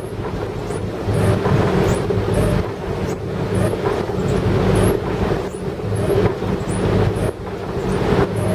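A boat's twin engines running steadily at cruising speed, a low even hum, under the hiss of heavy rain and spray on the pilothouse windows.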